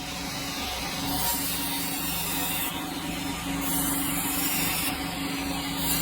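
Sawmill running and cutting a hardwood log: a steady machine hum under a high rasping hiss that comes and goes every second or so.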